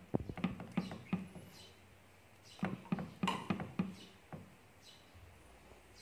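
Kitchen utensils being handled: light clicks and taps in two quick flurries, the first in the opening second and the second from about halfway through, with a few faint high squeaks between them.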